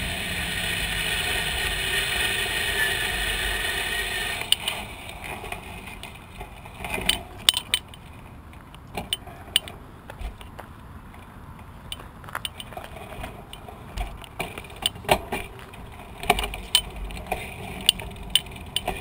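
Bicycle rolling on a paved path with steady riding noise for the first four seconds or so, then slowing and stopping. After that the level drops, and irregular sharp clicks and rattles from the bicycle go on.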